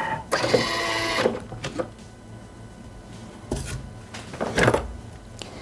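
Thermomix TM6 (Bimby) food processor giving a short, steady mechanical whir for about a second. A couple of seconds later come a few short clicks and knocks as the machine's lid is handled.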